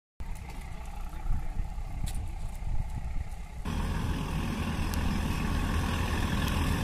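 Diesel locomotive engine running as the train approaches, a steady low drone with some noise over it. About three and a half seconds in, the sound turns abruptly louder and fuller.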